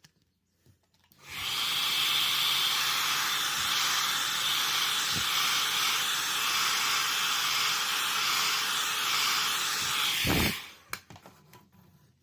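Handheld heat gun blowing hot air in a steady rushing hiss, switched on about a second in and cut off shortly before the end. It is heating the phone's back glass to soften the adhesive.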